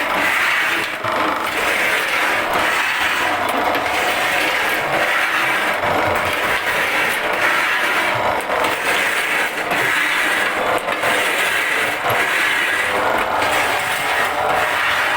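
Wood-shaving machine running, its blade shaving sappan wood into very thin shavings: a steady scraping noise.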